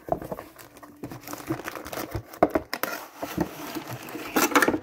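Cardboard model kit box being opened at its end flap and handled, with crinkling and rustling of packaging and small irregular clicks and scrapes. A louder burst of rustling comes near the end.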